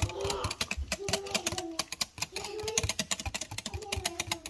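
Whisk rattling rapidly against a mixing bowl, a fast run of clicks, as instant lemon pudding mix is stirred into milk.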